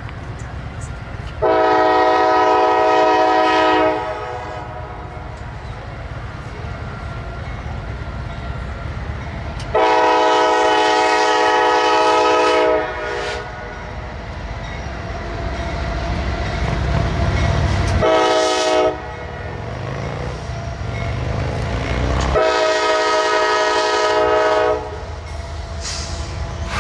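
Norfolk Southern freight locomotive's air horn sounding the grade-crossing signal: two long blasts, a short one and a final long one, each a loud multi-note chord. Between the blasts the low rumble of the diesel locomotives and rolling freight cars passing close by, building near the end.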